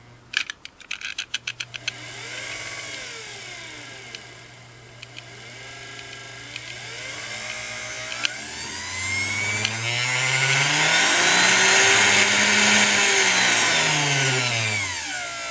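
Singer Model 237 sewing machine motor run from its Mercury carbon-pile foot pedal, after a quick run of clicks. It speeds up and slows down, then winds up to its fastest in the second half and slows again near the end. The harder the carbon stack is compressed, the less the resistance and the faster the motor runs: the reassembled pedal is working properly.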